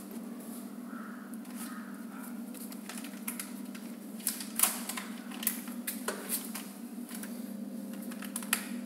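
A plastic vacuum pouch crinkling and clicking as hands arrange it across the seal bar inside a chamber vacuum packing machine, with a run of sharp clicks in the second half. A steady low hum runs underneath.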